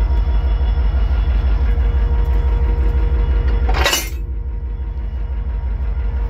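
Diesel locomotive engine idling close by: a steady low rumble with a regular throb. About four seconds in there is a brief hissing burst.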